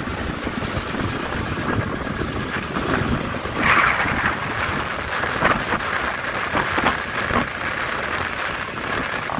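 Wind rushing over the microphone on a moving motorcycle, with road and engine noise underneath. A few louder gusts come in around the middle.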